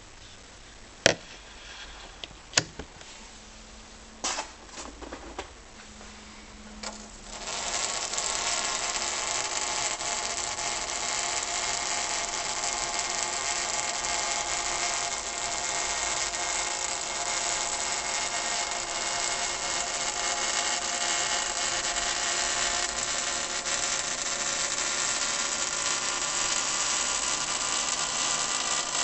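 A cylindrical piece of dry ice vibrating on a granite sink as it sublimates, making a steady, loud buzzing squeal with several tones at once. The squeal is set off by the escaping carbon dioxide gas making the ice judder against the stone. A few sharp clicks and knocks come before it, and the buzz starts about seven seconds in.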